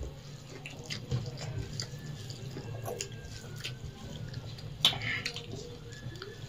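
Wet eating sounds of people eating rice and egg curry with their hands: fingers squishing food on steel plates and mouths chewing, heard as scattered clicks and smacks, the sharpest about five seconds in. A steady low hum runs underneath.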